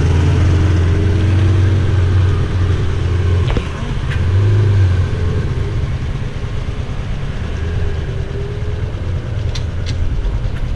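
Supercar engine running with a deep, steady low hum, swelling briefly about four seconds in before settling again.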